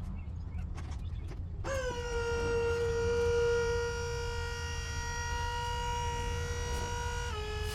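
Skid steer running with a low rumble. About two seconds in, a steady high-pitched whine starts suddenly and holds, then drops slightly in pitch near the end.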